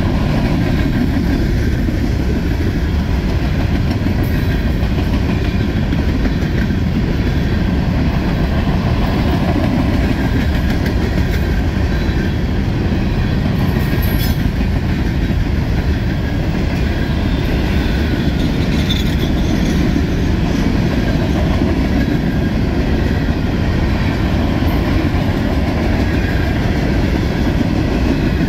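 Freight train cars rolling past at a steady level, wheels running over the rails, with no locomotive engine prominent.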